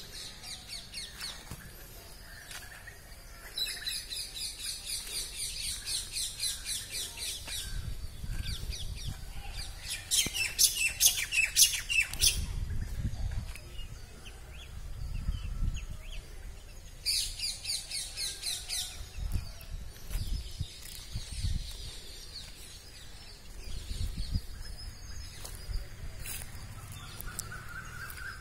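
Birds calling in rapid runs of high, quickly repeated chirps, in three long bouts. Bouts of low rumble come and go in between.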